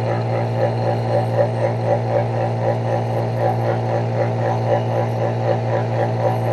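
Refrigeration vacuum pump running steadily while evacuating a refrigerator's sealed system: a low hum with a rapid, even pulsing of about six beats a second.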